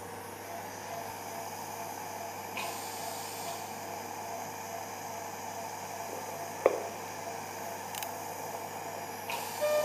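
Operating-theatre ambience: a steady hum and hiss of equipment with faint, evenly repeated monitor beeps, and a few sharp clicks of steel surgical instruments as the abdominal wound is sutured. The loudest click comes about two-thirds of the way through.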